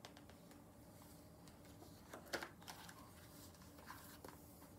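Faint rustling of a picture book's paper page being turned, with a short cluster of soft rustles a little before halfway, against near silence.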